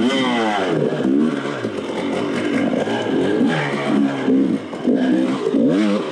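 Enduro dirt bike engine revving up and dropping back about once a second as the throttle is worked on and off.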